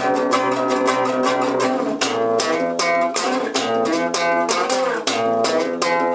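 Guitar playing a rhythmic part of quickly repeated picked chords, moving to a new chord about two seconds in, with a short bend in pitch a little past the middle.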